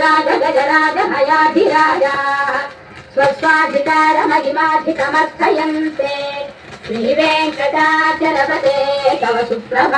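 A vinyl LP playing on a Bush belt-drive turntable: a high voice singing with accompaniment, in phrases with short breaks. It sounds dull, with little treble.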